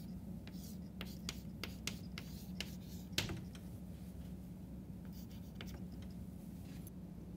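Chalk on a chalkboard as a diagram is labelled: a quick run of short, sharp taps and scratches in the first three seconds, then a few fainter, softer strokes later on.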